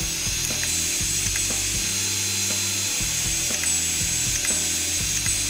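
Old 20 GB Seagate hard drive running with its lid off: the read-write head arm swings back and forth, ticking irregularly about twice a second over a low hum that switches on and off, with a steady high whine behind. This is the repeated seeking of a drive that can no longer read its disk because its read-write mechanism has failed.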